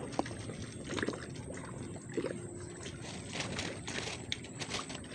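Water lapping and sloshing, with scattered small clicks and knocks.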